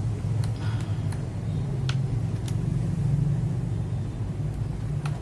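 A steady low hum with about six scattered sharp clicks, single keystrokes on a mechanical keyboard.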